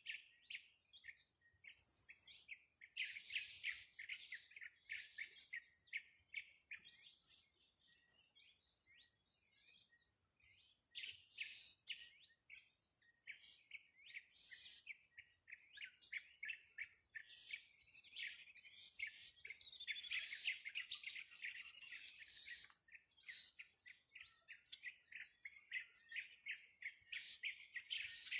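Songbirds chirping and trilling: a dense run of rapid, high notes, coming in quick clusters with brief gaps.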